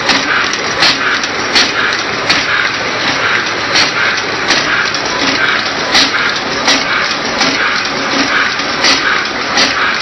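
Automatic double-side wire crimping machine running: sharp mechanical clacks, often in pairs about 0.7 seconds apart, repeat over a steady noisy whir as it works through its cycle.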